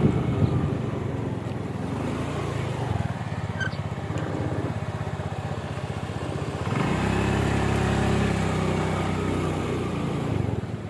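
A motor vehicle engine running steadily, growing louder about seven seconds in and easing off near the end.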